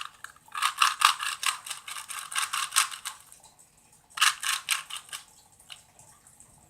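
Plastic Rubik's Cube being twisted quickly, its layers clicking and clattering in a rapid run of about two and a half seconds, then again for about a second a little after four seconds in.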